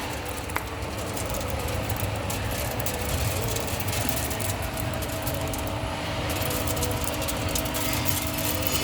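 Continuous industrial nut roasting machine running steadily under test: a low, even machine hum with a faint steady whine over it.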